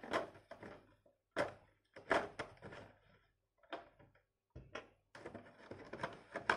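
Handling noises from a small plastic toy: a few light clicks and taps spaced about a second apart, then a soft rustle near the end.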